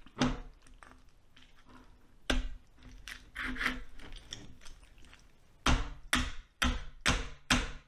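Large kitchen knife hacking at a roasted lamb head, the blade striking the skull: a couple of single knocks, scraping sawing strokes in the middle, then five hard chops about two a second near the end.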